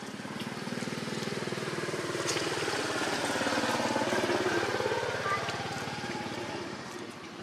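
A small engine passing by: it grows louder to a peak about four seconds in, then fades, its pitch rising and then dropping.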